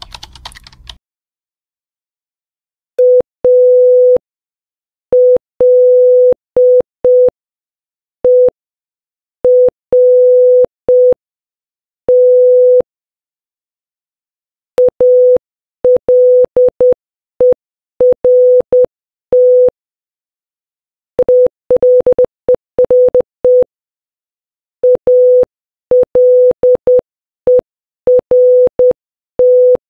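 Morse code beeps, a single steady tone of about 500 Hz, spelling ALERT (.- .-.. . .-. -) four times: first slowly, then faster, with the third pass the quickest. A short burst of noise comes at the very start.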